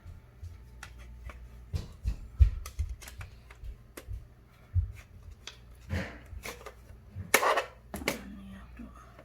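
Irregular plastic clicks and knocks, with a few duller thumps and rustles, as batteries are fitted by hand into a toy RC car's remote control.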